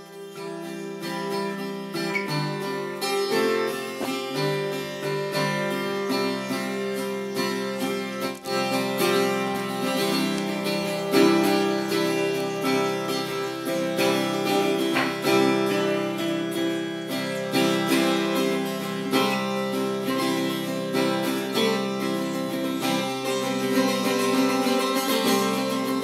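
Acoustic guitar music with sustained plucked notes, getting louder over the first few seconds.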